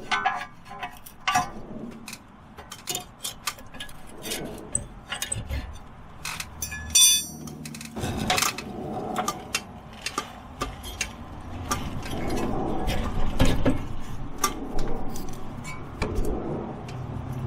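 Metal tools and parts clinking and clattering, with many scattered sharp knocks and a brief metallic ring about halfway through.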